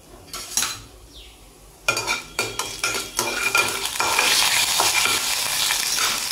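Mustard seeds, cumin, fenugreek and urad dal spluttering in hot oil in a metal kadai: a few pops at first, then from about two seconds in a dense crackling that builds into a steady sizzle as the tempering takes. A metal spatula scrapes and stirs against the pan through it.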